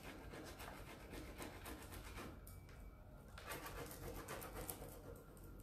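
Faint, irregular scratchy rubbing strokes of a transfer applicator burnishing a decor transfer's paper onto a heavily textured pine board, with a short lull about halfway through.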